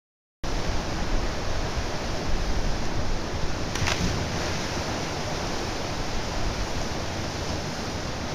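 Steady rush of a small waterfall cascading into a rock pool, cutting in abruptly after a moment of silence, with a brief splash about four seconds in as a person jumps into the pool.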